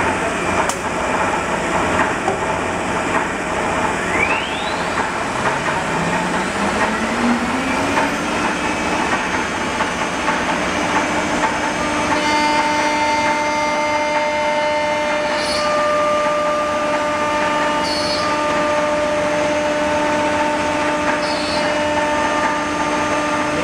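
Automatic CNC wood router running: a steady mechanical din, and about five seconds in a motor spins up with a smooth rising whine that levels off and holds as a steady whine, with further steady higher whines joining after about twelve seconds.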